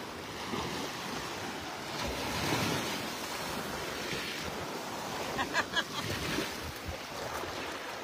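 Small waves lapping and washing up onto a sandy beach in a steady wash, with wind buffeting the microphone. A few brief sharp sounds come about two-thirds of the way through.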